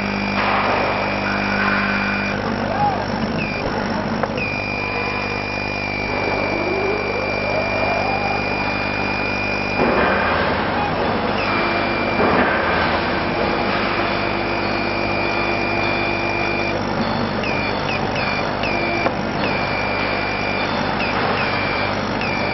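Laser cutting machine at work cutting MDF: a steady high whine from the gantry drive stops and restarts several times as the head changes direction, over a constant low machine hum.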